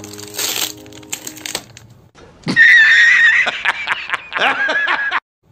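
Thin plastic wrap crinkling and tearing off a cardboard pencil box over background music, then a loud dubbed-in comic meme sound effect of a man laughing.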